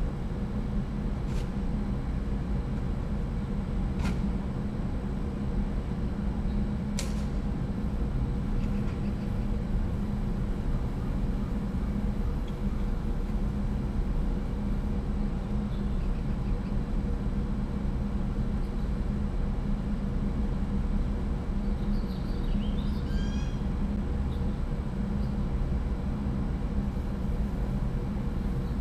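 Steady low rumble of urban background noise: traffic or building machinery. A few sharp clicks come in the first seven seconds, and a quick run of high chirps comes about 22 seconds in.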